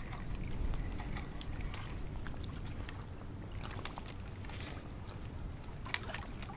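Wind noise on the microphone over lapping water where an angler is wading, with two sharp clicks, about four and six seconds in.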